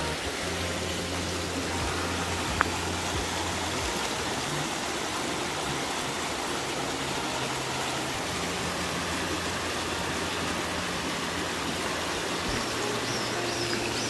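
Shallow mountain stream running over rocks and a pebbly bed, a steady rushing noise. A single sharp click about two and a half seconds in.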